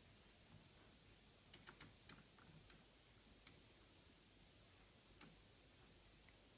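Faint, sharp clicking from an LG F1056QD washing machine starting up: about seven irregular clicks, mostly in a cluster between one and a half and three and a half seconds in, with a last one near the end, over near silence.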